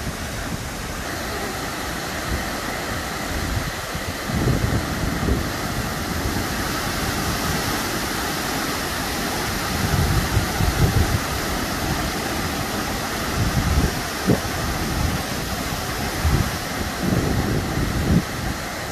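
Wangi Falls' waterfall plunging into its pool, a steady rush of falling water. Gusts of wind buffet the microphone several times, strongest about four seconds in, around ten to eleven seconds in and near the end.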